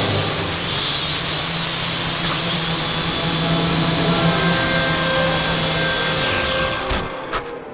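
Small quadcopter drone's motors and propellers whirring steadily in flight, pitch wavering slightly, then winding down and stopping about six and a half seconds in, followed by two sharp knocks.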